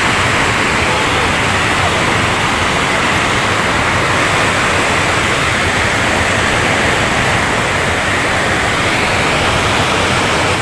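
Water pouring over a concrete weir spillway: a loud, steady rush without a break.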